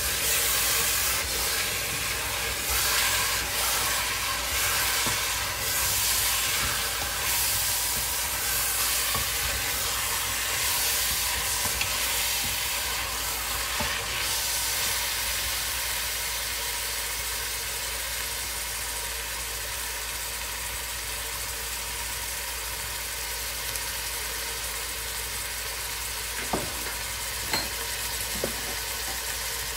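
Onions and meat sizzling in oil in a metal pot while a wooden spoon stirs and scrapes them, busiest over the first half. After that the sizzle goes on more steadily, with three short knocks near the end.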